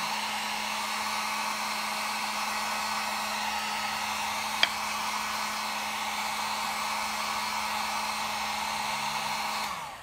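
Electric heat gun blowing steadily, a rushing airflow over a steady motor hum, drying fresh paint on a small wooden cabinet knob. There is one brief click about halfway, and the gun is switched off just before the end.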